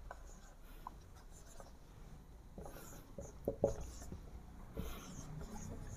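Marker writing on a whiteboard: faint, short strokes of the tip against the board, one after another, with a few louder strokes a little past halfway.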